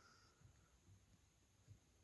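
Near silence: faint room tone, with a small tick about a second and a half in.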